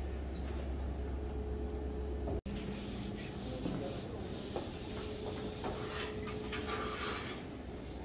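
Indoor room tone: a steady low hum that breaks off in a brief dropout about two and a half seconds in, followed by even background noise with a faint steady tone and a few faint clicks.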